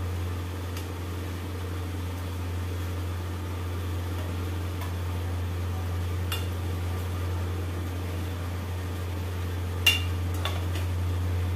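A steel slotted spoon clinks lightly against a steel kadhai a few times, most sharply about ten seconds in, over a steady low hum.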